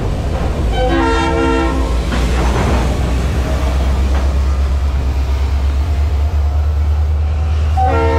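Freight locomotive horn sounding a chord of several tones: one blast of about a second near the start and another starting near the end, sounded for a road crossing whose signals are out. A steady low rumble runs underneath.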